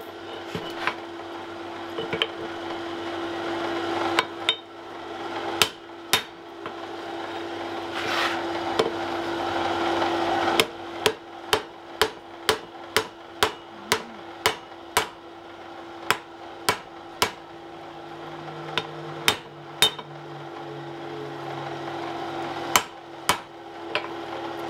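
Hand hammer blows on a red-hot wrought iron bar being bent around a hardy tool in the anvil. The blows come in uneven groups, with a quick run of about two a second in the middle, over a steady hum.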